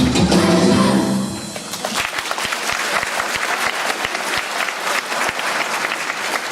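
Backing music ends about a second and a half in, and audience applause follows.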